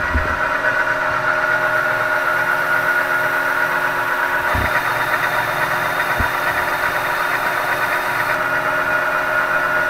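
Metal lathe running at steady speed with a steady gear whine, spinning a motorcycle fork tube while a Scotch-Brite pad is pressed against it to polish the seal-wear spots off the tube. Two light knocks come about halfway through.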